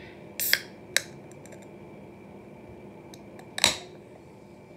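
A pull-tab on a can of sparkling water being worked open: a short crack-and-hiss about half a second in, a single click a moment later, and a louder sharp crack with a brief fizzing hiss near the end.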